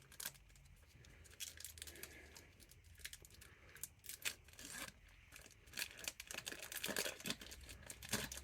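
Pokémon TCG booster pack packaging being torn open and crinkled: a run of small crackles and tearing sounds, getting busier near the end.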